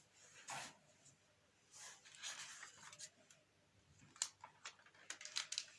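Faint rustling and a quick run of small sharp clicks near the end, close to the microphone in a quiet small room.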